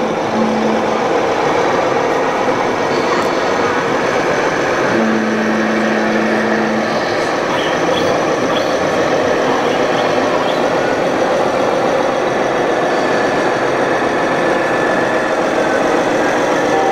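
Sound modules in scale RC model trucks playing diesel engine running sounds, over the steady hubbub of a crowded exhibition hall. A low, steady tone holds for about two seconds about a third of the way in.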